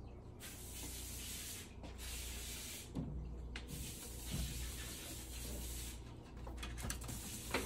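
Puppies scuffling on fabric bedding in a crate, making patches of soft rustling with a few faint clicks.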